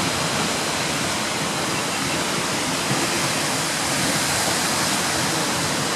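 Seljalandsfoss waterfall: water falling from the cliff into its plunge pool, making a steady, unbroken rush.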